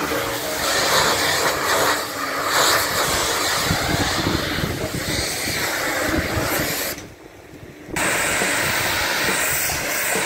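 High-pressure washer jet hissing steadily as it blasts the underwater hull of a sailboat clean. It drops out for about a second around seven seconds in, then resumes.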